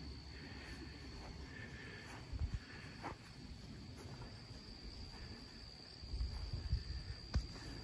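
Insects singing in the summer grass: one steady, high-pitched drone. Low rumbling bumps come in briefly about two and a half seconds in and again near the end.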